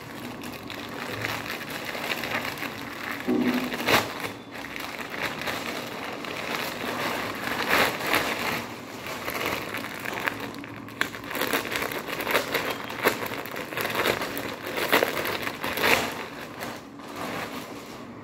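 Plastic packaging crinkling and rustling as a plastic courier mailer is opened and a T-shirt is pulled out of its clear polybag, with several sharper crackles along the way.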